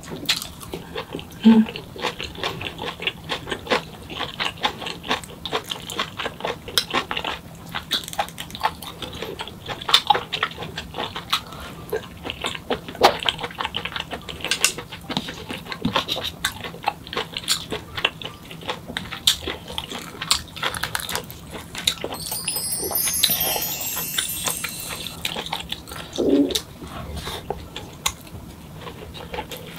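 Close-miked eating: wet chewing, lip smacks and mouth clicks as boiled pork is chewed, repeating quickly and unevenly throughout.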